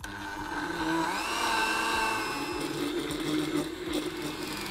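Countertop blender with a glass jar running, blending frozen watermelon and strawberry chunks with yogurt and coconut milk into a smoothie. It starts at once, its motor whine rises in pitch about a second in as the blades get up to speed through the frozen fruit, then runs steady.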